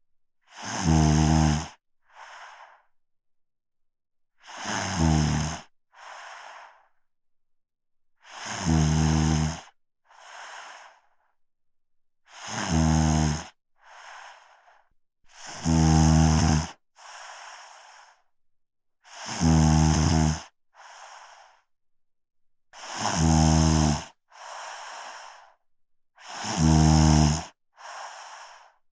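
A person snoring in a steady rhythm: eight loud, low, rattling snores, one about every three and a half to four seconds, each followed by a softer breathy sound.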